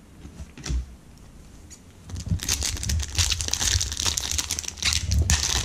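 Crinkling of a trading-card pack wrapper being handled, a dense crackle that starts about two seconds in and keeps on, after a quieter stretch with a single light click.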